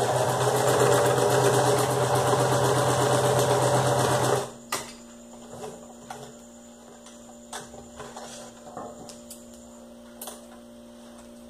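Electric sewing machine stitching a seam through felt at a steady fast rate, stopping abruptly about four seconds in. Afterwards a few faint clicks and snips as the threads are trimmed with scissors.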